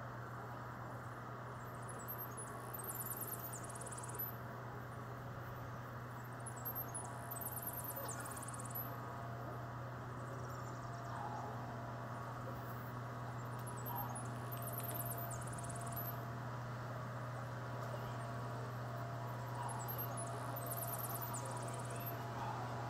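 Outdoor background noise with a steady low hum, and a short, high-pitched chirping trill recurring every five or six seconds.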